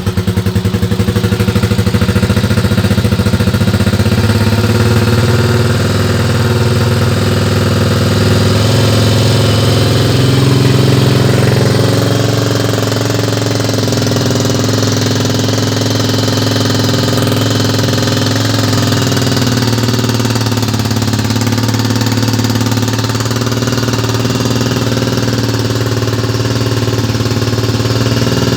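Motorstar Cafe 400 motorcycle engine idling steadily just after a cold start, the bike having stood unused. The idle lifts slightly about ten seconds in, then settles a little lower.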